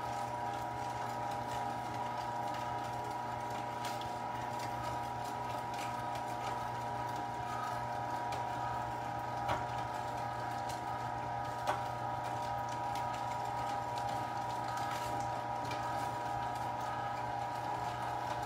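1 HP Carnivore electric meat grinder running steadily with a constant hum while it grinds raw meat, with two faint clicks near the middle.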